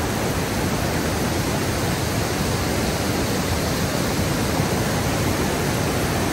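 Falling water rushing steadily: a loud, even hiss that does not change.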